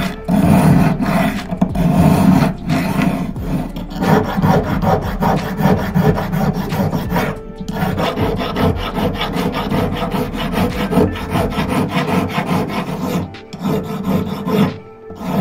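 Hand file rasping back and forth on a brass hex nut, shaping it into a ring. Slower strokes come first, then quicker ones after a few seconds, with a brief pause about seven and a half seconds in.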